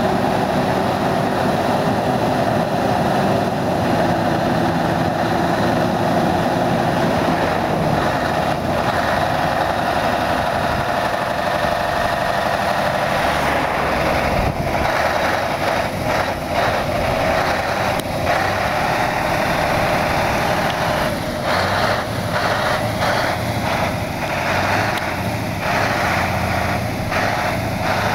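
Scania R620's 16-litre V8 diesel running at a steady idle, its exhaust note turning less even from about halfway through as the truck moves off.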